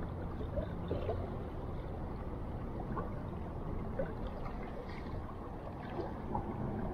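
Steady rush of flowing river water, with small gurgles now and then.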